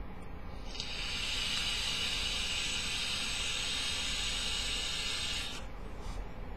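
Steady hiss of a long draw of about five seconds on a Joyetech Cubis sub-ohm vape tank, from air drawn through its airflow over the firing coil; it stops abruptly as the draw ends.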